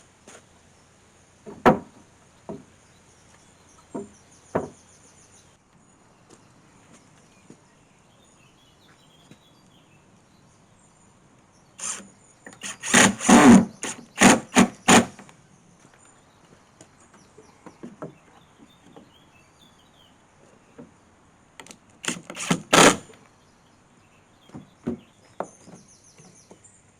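Scattered wooden knocks and thuds, with a dense run of loud ones about halfway through and another short run near the end. Faint high bird chirps are heard now and then.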